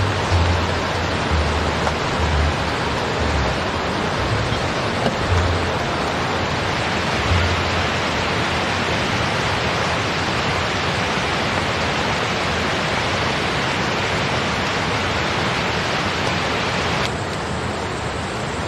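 Steady, even rush of water noise: rain on the tent and a fast-flowing river. Dull low bumps come now and then in the first few seconds, and the sound turns a little duller near the end.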